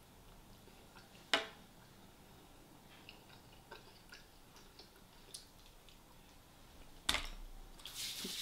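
Quiet eating sounds from a person eating fried chicken: scattered small clicks and taps, with a sharp click about a second in and another about seven seconds in, followed by rustling near the end.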